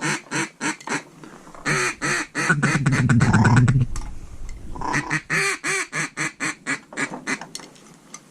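Hand-blown duck call giving mallard-style quacks. Each series of evenly spaced quacks comes at about four or five a second. Between them, about two and a half seconds in, comes a fast, loud rolling chatter: a feed call, worked to draw in a passing flock.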